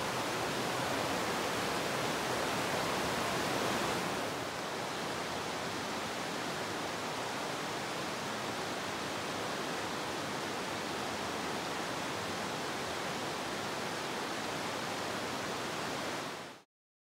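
Bright Angel Creek rushing steadily. It drops slightly in level about four seconds in and cuts off suddenly near the end.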